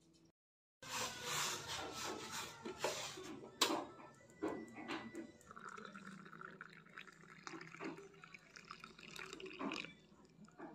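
A metal spoon stirring coffee in a glass mug: liquid swishing, with many sharp clinks of spoon on glass, one of them loud about three and a half seconds in.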